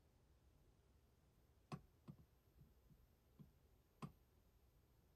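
Near silence: room tone with a few faint, short clicks, the clearest a little under two seconds in and again about four seconds in.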